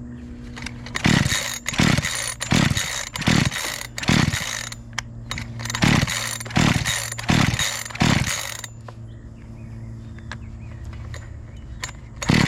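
Makita EA3200S two-stroke chainsaw being pull-started: about nine quick rasping pulls of the recoil starter cranking the engine, in two runs with a short pause between, then one more pull near the end. The engine does not catch and run.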